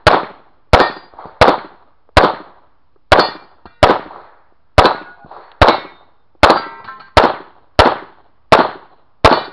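Grand Power K100 Target pistol firing a steady string of about a dozen shots, roughly one every three-quarters of a second. Some shots are followed by a short metallic ring, steel targets ringing when hit.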